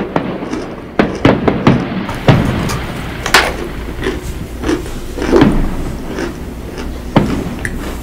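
Crunching bites into hard chunks of cornstarch, mixed with fireworks going off in bangs and crackles; a dozen or so sharp cracks and thumps at irregular intervals.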